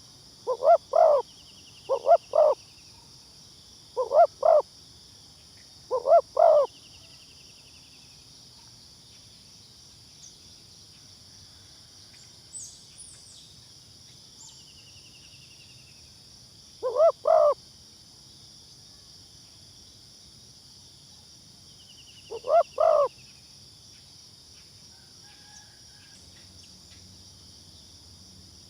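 Spotted dove cooing: six short, loud two-part coos, the first four about two seconds apart, then two more after a long pause. A steady high-pitched insect drone and a few faint high bird trills run underneath.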